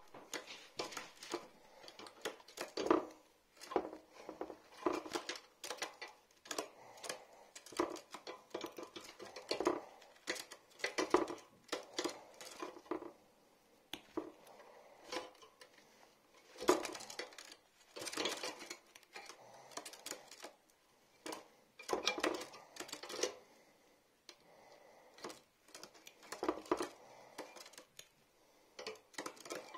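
Metal claw clippers snipping and clinking while a pine grosbeak's overgrown claws are trimmed, with handling rustle. The sound is a run of irregular sharp clicks and rattles in clusters, with short quieter spells in between.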